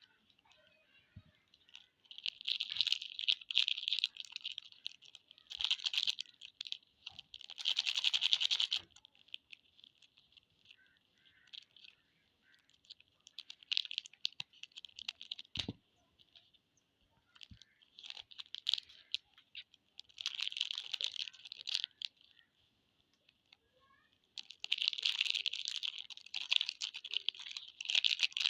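Plastic wrappers of Cadbury 5 Star chocolate bars being crinkled and torn open: bursts of rapid crackling with pauses between, and one soft thump about halfway through.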